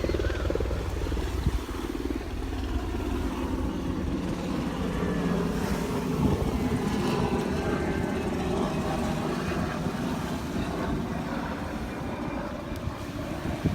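An aircraft flying over: a steady engine drone that grows louder towards the middle, over low wind rumble on the microphone.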